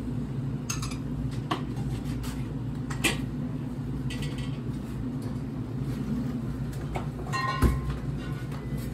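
Restaurant room tone: a steady low hum with scattered light clicks and knocks, the loudest about three seconds in and near the end.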